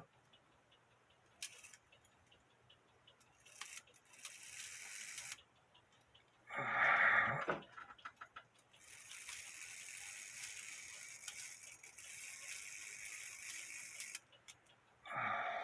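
A cuckoo clock movement being handled: scattered small clicks and rattling from its wires and levers, a louder brief noisy sound about seven seconds in, and a stretch of rustling in the second half.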